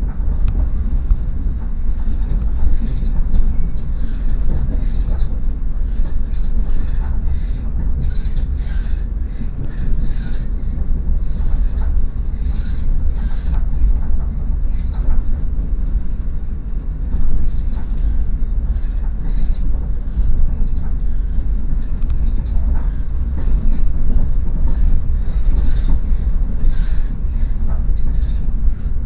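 Passenger train running at speed, heard from inside the carriage: a steady low rumble of wheels on the track, with light scattered clicks through it.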